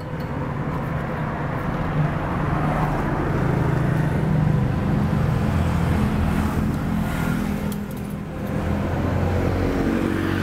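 Street traffic: motor vehicle engines, motorbikes among them, running as a steady low hum.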